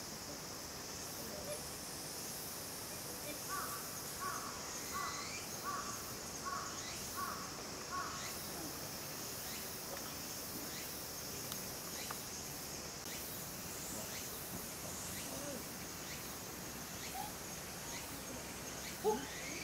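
Steady high-pitched insect buzzing, with a short call repeated about seven times at an even pace between about three and eight seconds in.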